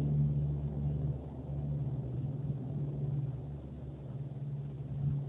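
A group of C-130 Hercules transports flying over, their four-engine turboprops making a steady low drone that swells and eases slightly.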